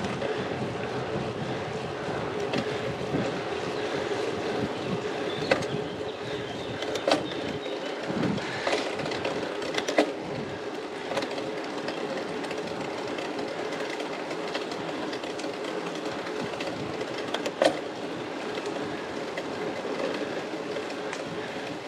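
Road bicycle ridden uphill on wet asphalt: a steady whir of the chain and drivetrain with tyre noise, broken by a few sharp clicks.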